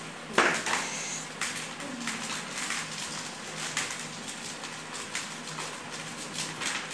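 Dried maize kernels being rubbed off the cobs by hand and pattering into a plastic tub of loose kernels: an irregular stream of small clicks and rattles, with one sharper clack about half a second in.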